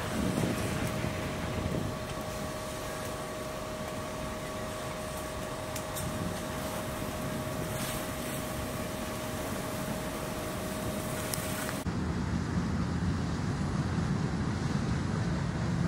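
Fire engine running at pumping speed while hose streams spray, a steady mechanical rumble and hiss carrying a steady whine. About twelve seconds in the sound cuts to a deeper rumble.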